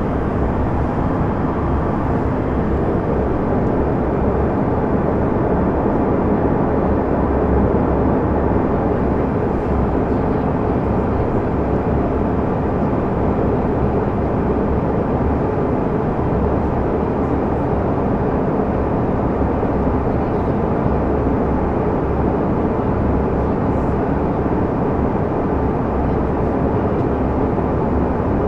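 Steady in-flight cabin noise of a Canadair CRJ200 regional jet: the even, low rush of its rear-mounted CF34 turbofan engines and the airflow over the fuselage, with no change in level.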